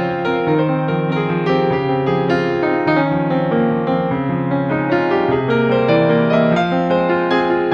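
Background piano music: a gentle keyboard melody over steady held notes.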